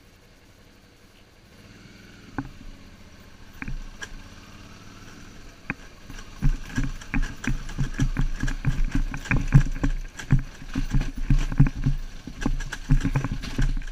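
BMW R1150GS motorcycle riding over a rough, stony dirt track. It starts quiet, then from about six seconds in comes a run of rapid, uneven knocks and thumps as the bike jolts over loose rocks.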